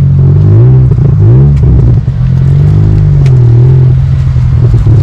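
A car engine running loudly, its pitch rising and falling as it is revved, with a quick rise about a second and a half in.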